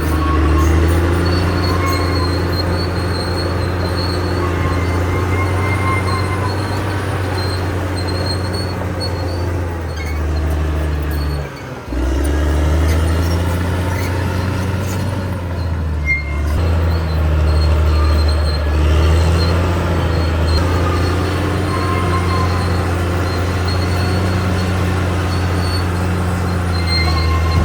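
CAT D6R XL bulldozer working: its diesel engine runs steadily and heavily, with intermittent high-pitched squeaks typical of its steel crawler tracks. The engine sound dips briefly about twelve seconds in.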